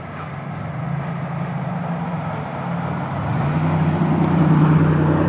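A car driving along the street, its engine hum and tyre noise growing louder toward the end as it approaches.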